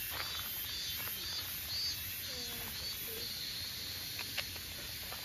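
Crickets chirping in a chorus, a high-pitched song that pulses about twice a second, with a second, lower pulsing band beneath it.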